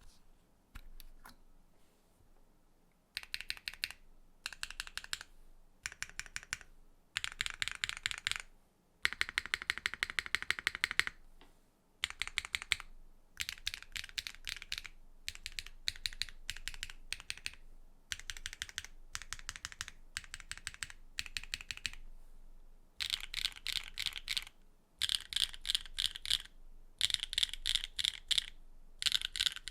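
Typing on a Neo65 65% mechanical keyboard with a carbon-fibre plate and HMX Retro R switches: quick runs of keystrokes lasting a second or two, broken by short pauses, with the runs coming closer together near the end.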